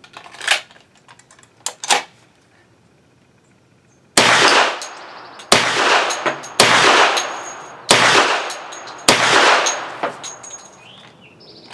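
Five 10mm pistol shots from a Hi-Point 1095 Yeti, fired about a second apart, each with an echo trailing off after it. The even string shows the gun feeding and firing without a stoppage. A few sharp clicks come in the first two seconds, before the first shot.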